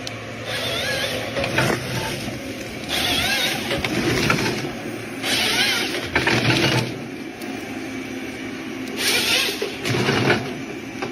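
A forestry harvester running under load, with the John Deere H425 harvester head's hydraulic chain saw cutting logs in four bursts of a wavering whine, each about a second and a half long.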